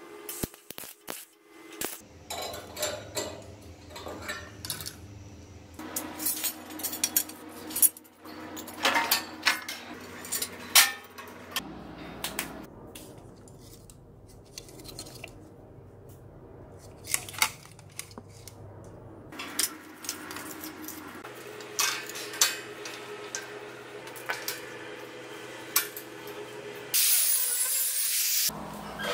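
A string of metal clinks and knocks from steel parts and tools being handled, over a low steady hum. Near the end an angle grinder cuts into a steel tube for about a second and a half.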